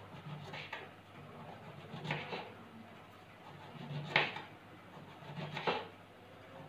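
Kitchen knife slicing a round eggplant (brinjal) into thin rounds on a board: four separate cuts, roughly one every one and a half seconds, the third the loudest.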